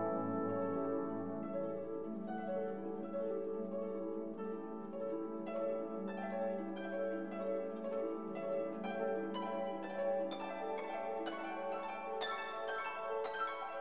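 Background instrumental music: plucked string notes over sustained low notes, the plucked notes coming thicker toward the end.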